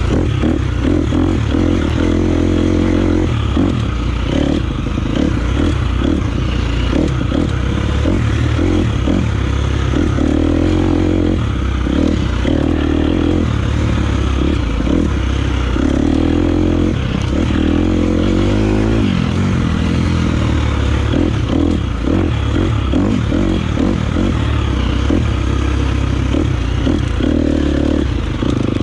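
250 cc four-stroke single-cylinder dirt bike engine running on a trail ride, its pitch rising and falling as the throttle is opened and closed.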